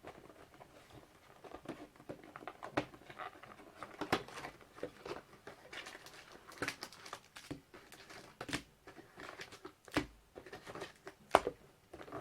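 Crinkling plastic wrap and cardboard being torn and handled as a Panini Titanium basketball-card hobby box is opened, with scattered crackles and a few sharper taps in the second half.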